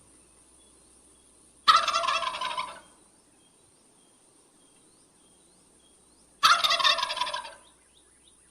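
Male wild turkey gobbling twice, each gobble a loud, rapid gurgling rattle about a second long, the second coming about five seconds after the first.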